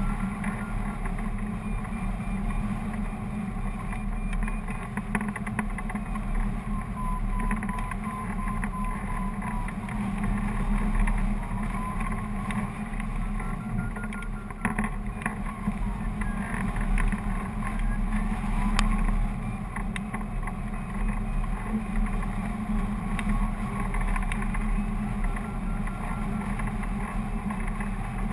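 Airflow rushing over a hang glider and its mounted camera in flight: a steady low rumble and buffeting.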